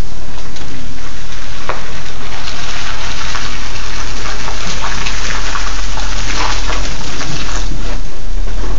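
Rain: a loud, steady hiss with many small scattered crackles.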